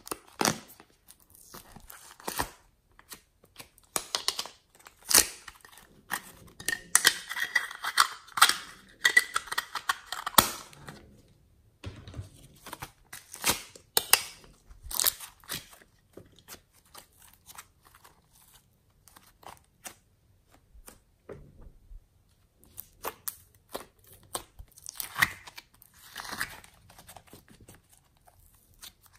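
Hands handling puzzle-shaped plastic slime containers and working sticky slime and soft clay, with scattered clicks and crackling. A dense run of crackling comes from about four to ten seconds in, and short bursts of sticky tearing come near the end as the clay is pulled apart.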